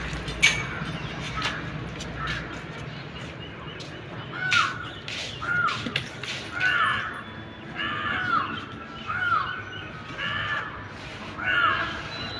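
A bird calling over and over, about ten short arched calls roughly a second apart, starting about four seconds in, with scattered faint clicks before them.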